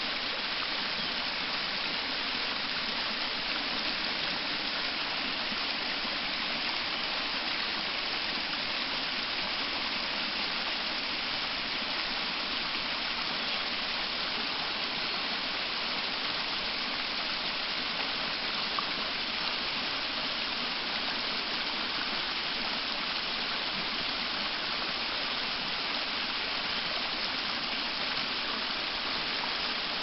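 Small waterfall on a mountain stream splashing down a rock chute: a steady, even rush of falling water with little deep rumble.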